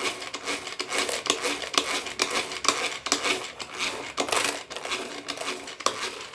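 Hand beater whipping instant coffee, sugar and water in a bowl for dalgona coffee: fast, continuous clicking and scraping against the bowl as the mixture turns thick and foamy.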